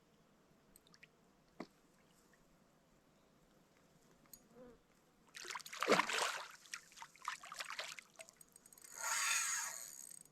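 Water splashing and sloshing in two noisy bursts, the first and loudest about halfway through and a shorter one near the end, after a few light clicks.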